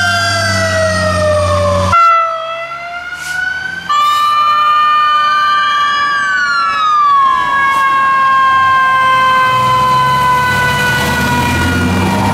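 Fire truck sirens wailing, the pitch sliding slowly down and up. The sound jumps abruptly to a different siren about two seconds in and again about four seconds in. A heavy truck engine rumbles underneath, growing louder near the end.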